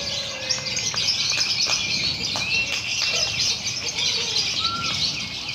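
Many lovebirds chattering together in a dense, unbroken high chorus, the sound of a lovebird singing contest, with a few clearer whistled notes gliding over the top.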